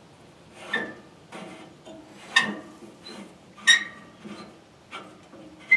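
Steel log clamp on a sawmill bed being worked tight against a log: a string of sharp metal clicks and clanks with a short ring, four louder ones about a second and a half apart and fainter ticks between.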